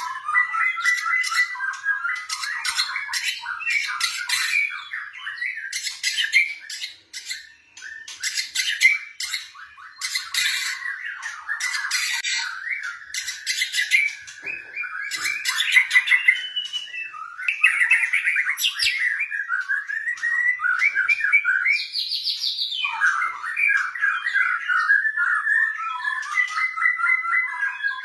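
White-rumped shama (murai batu) singing a long, varied song: rapid chattering trills and harsh squawk-like notes mixed with clear whistled phrases, with a short rising sweep about three quarters of the way through.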